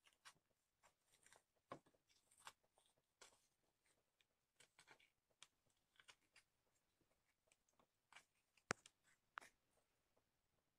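A small knife scraping and cutting into a peeled tinda (round gourd) to hollow out its pulp and seeds: faint, irregular crisp scrapes and crunches, with one sharper click late on.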